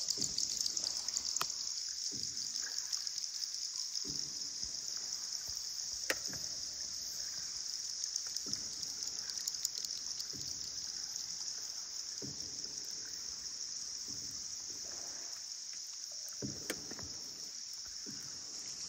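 Paddle strokes in the water from a small paddled tour boat, a soft swish about every two seconds with a few sharp knocks, over a steady high-pitched hiss.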